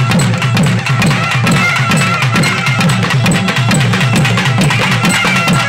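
Naiyandi melam ensemble playing: thavil drums beating a fast, steady rhythm under the reedy, gliding melody of nadaswarams.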